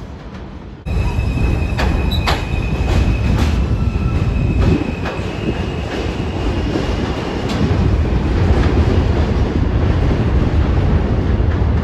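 New York City subway train running on the rails: a loud, steady rumble of wheels with rail-joint clicks and a thin, high wheel squeal over the first several seconds. The sound comes in abruptly about a second in.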